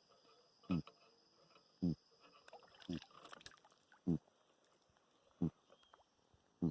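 Surubim cachara (barred sorubim catfish) grunting on the riverbank: six short grunts, about a second apart.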